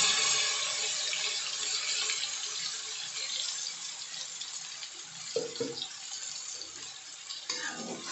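Wet blended chili, shallot and garlic paste sizzling in hot oil in a wok, a steady hiss that fades as the paste settles in the oil.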